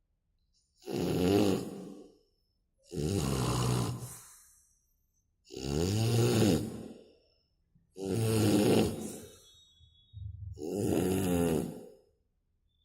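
A person snoring heavily, five snores about every two and a half seconds. Each is a rasping, pitched rumble with a loud hiss, like a truck's air brake letting off.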